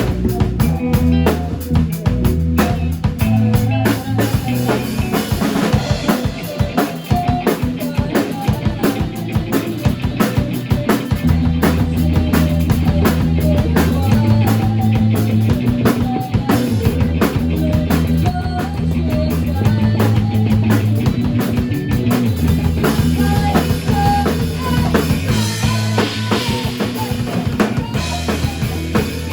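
A band playing a Thai rock song: a drum kit keeps a busy beat under sustained bass notes that change every couple of seconds, with a melody line above.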